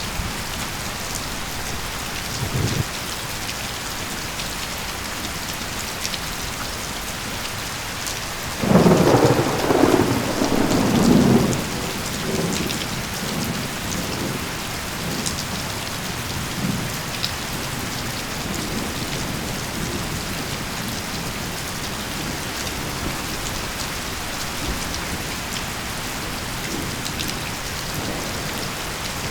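Steady rain falling, with a roll of thunder about nine seconds in. The thunder is loudest for around three seconds, then dies away in fainter rumbles.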